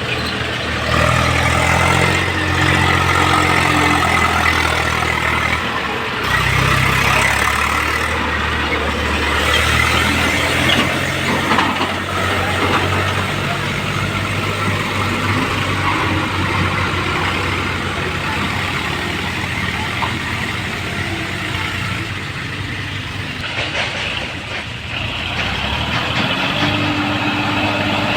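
Diesel tractor engine running, its pitch and level stepping up and down as it is revved, with a noisy mechanical clatter over it.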